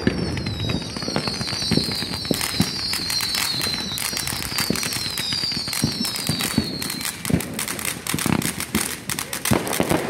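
Fireworks display going off: a dense run of crackling pops and bangs, with a string of high whistles, each sliding down in pitch, over the first seven seconds or so.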